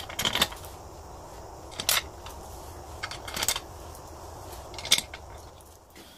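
Short metallic clicks and clinks, about four of them spread a second or so apart, as new steel bolts are handled and fitted by hand into a motorcycle engine's clutch cover.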